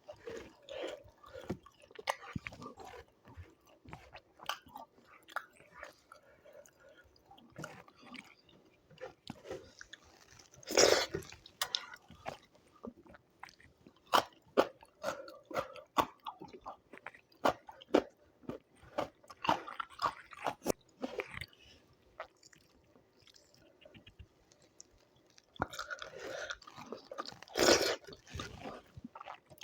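Close-up eating sounds of a person chewing and biting through a meal of yogurt chicken, rice, raw radish and onion. Mostly soft, quick mouth clicks, with two louder crunchy bites, one about eleven seconds in and one near the end.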